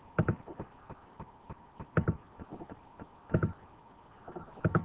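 Computer mouse buttons clicking, a few sharp clicks at irregular intervals, with a faint steady tone underneath.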